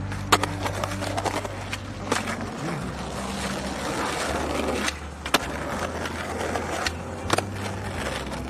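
Skateboard sounds: wheels rolling with several sharp board cracks from pops and landings, four louder ones spread through. A rougher, noisier stretch of about two seconds comes in the middle.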